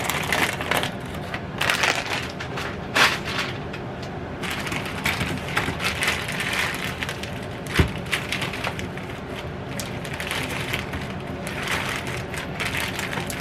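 Crinkling plastic freezer packaging and the rattle of frozen food pieces being handled and poured, with a single sharp knock a little past the middle.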